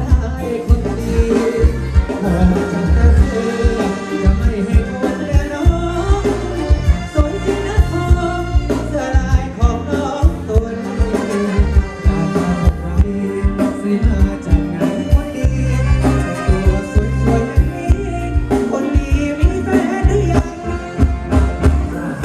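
Live Thai ramwong band music through a stage PA: a steady drum beat and heavy bass under the band, with a singer's voice over it.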